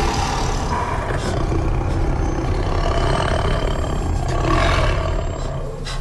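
Lions roaring over a continuous low rumble, swelling about a second in and again near the end.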